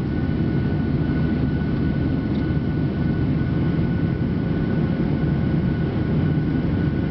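Jet airliner in flight heard from inside the cabin: a steady roar of the engines and rushing air, with a thin steady whine above it.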